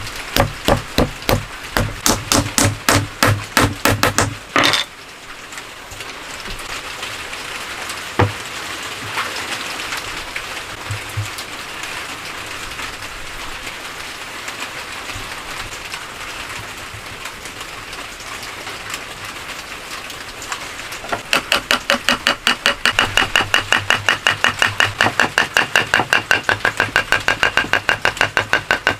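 Fast, even strokes of a hand tool working wood, about five a second, in a run at the start and again through the last third. The later run carries a steady ringing tone. Between the two runs there is a steady hiss with one sharp knock.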